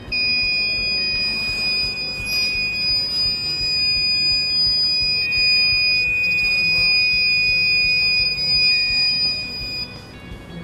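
Electronic warning buzzer sounding one steady, loud, high-pitched tone for almost ten seconds, then cutting off suddenly. It is the proximity alarm of an ultrasonic distance-measuring circuit, triggered because an object on one sensor's side is closer than 30 cm.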